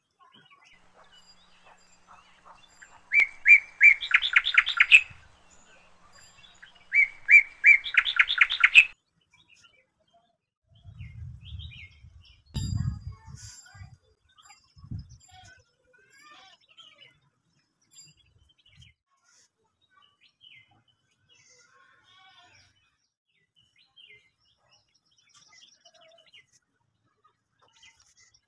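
A songbird singing the same short song twice, a few seconds apart: a few clear repeated notes running into a quick trill. Fainter chirps follow later, and a few dull low bumps come near the middle.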